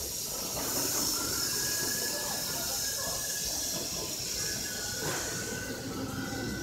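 CNC router running: a steady hiss with a faint, steady high whine.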